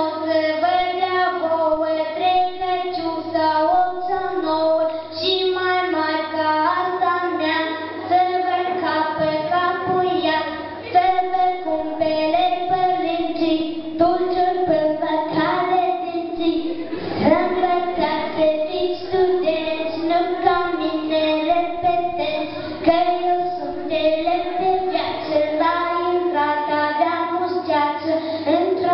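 A child singing a song solo into a handheld microphone, amplified through a PA in a large hall. The melody moves in held notes, over a steady low electrical hum from the sound system.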